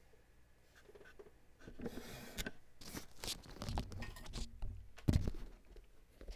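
Handling noise: irregular rustling and scraping with several short knocks, the loudest a dull thump about five seconds in.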